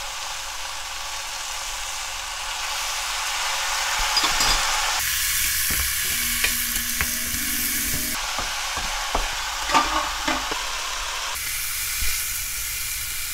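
Rehydrated dried Korean zucchini slices sizzling with a steady hiss as they are stir-fried in a frying pan, with cooking chopsticks clicking against the pan several times.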